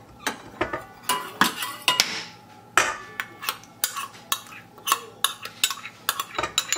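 Metal spoon scraping butter out of a glass bowl: a run of light clinks and taps, with a few longer scrapes about two to three seconds in.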